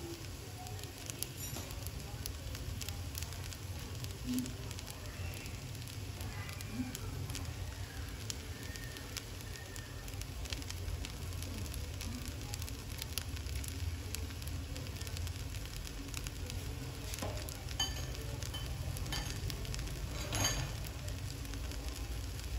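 Shrimp fried rice sizzling in a stainless-steel frying pan, with scattered crackling pops over a steady low rumble.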